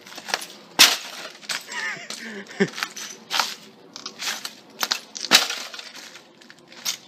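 Broken CRT television glass and plastic pieces crunching and smashing under repeated stomps, about ten irregular impacts, the loudest about a second in and again about five seconds in.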